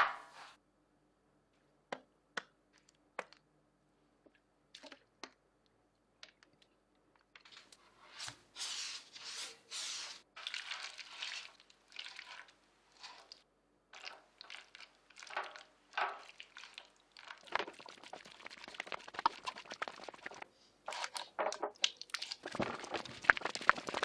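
Gloved hands dropping and pressing a crumbly potato mixture into sheet-metal trough molds: soft crunching and squishing, busier in the second half. A few sharp, separate clicks come in the first few seconds.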